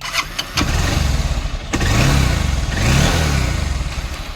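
A vehicle's electric self-starter cranks the engine, which catches, revs up and down once, then settles to a steady run. The freshly cleaned starter, its rear brass bush just greased, cranks without the scratchy grinding it was repaired for, sounding quiet and clear.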